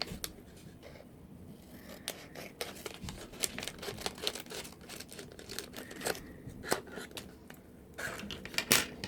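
Blind-box packaging handled and opened by hand: scattered crinkles, small rips and clicks, with a couple of brief pauses.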